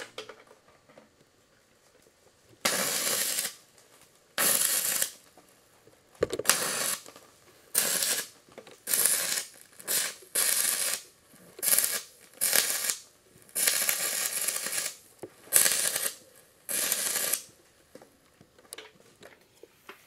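Stick-welding arc powered by three 12-volt deep-cycle batteries in series (36 volts) through jumper cables, burning a 7014 rod. The arc crackles in short bursts of about half a second to a second, striking and dying about a dozen times. It spits on and off because the battery-fed arc is very hard to hold.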